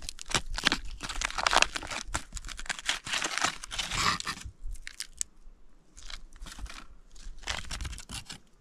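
Foil-lined MRE ration pouch being torn open and crinkled by hand: a dense crackling rustle for the first four seconds or so, then sparser short crackles as the package is handled.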